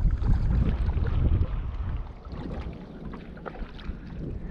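Wind rumbling on the microphone, heaviest for about the first two seconds and then easing, with small scattered clicks over it.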